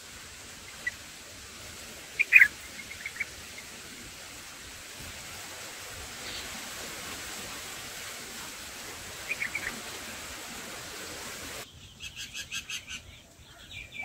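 Short, high chirps from bulbuls at a nest over a steady hiss: a few single chirps, the loudest cluster about two seconds in, and near the end a quick run of rapid chirps.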